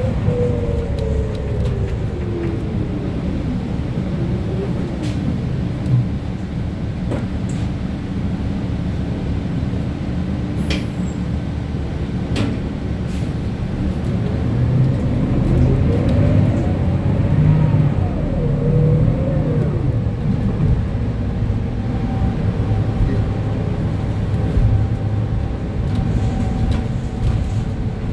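Inside a 2025 Gillig CNG transit bus: steady engine and drivetrain rumble with a whine that glides down over the first few seconds, then rises and falls again about halfway through. This is the bus slowing for a requested stop and then pulling away. A few sharp clicks and knocks come from the bus body.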